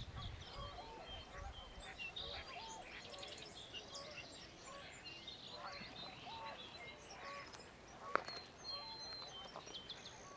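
A chorus of birds calling: many short, overlapping calls repeated over and over, with higher chirps above them. There is a low rumble in the first couple of seconds and a single sharp click about eight seconds in.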